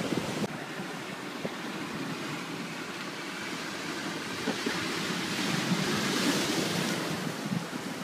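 Ocean surf washing on a rocky shore, a steady rush that swells into a louder wash about two-thirds of the way through. Wind buffets the microphone at the start and again near the end.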